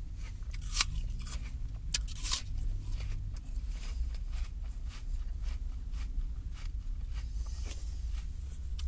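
Someone biting and chewing a crisp apple: a few sharp crunches in the first two and a half seconds, then steady wet chewing, over a low steady rumble.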